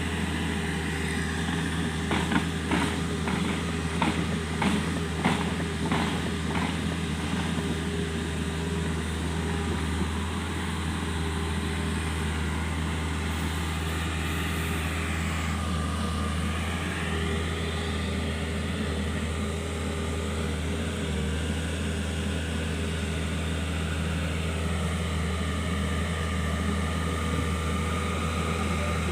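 Kobelco SK50P mini excavator's diesel engine running steadily under work. About two seconds in comes a run of sharp knocks, roughly two a second for about five seconds. A faint whine rises and falls near the middle.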